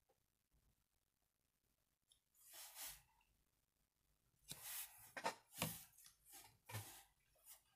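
Faint scratching and rustling from a fine-point Sharpie marker and a sheet of shrink plastic being worked by hand, in short scratchy bursts: one about two seconds in, then several close together in the second half.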